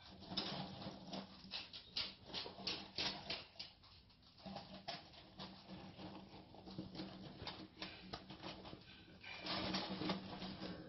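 Pet rats scrabbling and rooting through shredded crinkle-paper bedding, making dense, irregular crackling and rustling that grows louder near the end.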